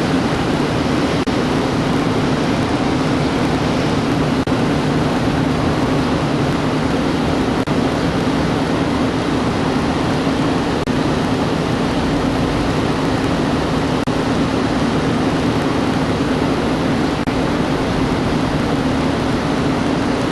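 Steady road and engine noise of a vehicle driving, an even rumble and hiss with a low hum.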